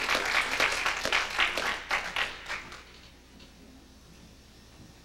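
Audience clapping in a hall, dying away about three seconds in.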